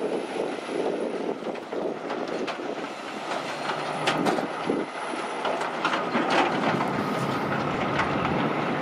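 Heavy truck going by, its trailers rattling and clanking over the road; the clatter is loudest about six seconds in.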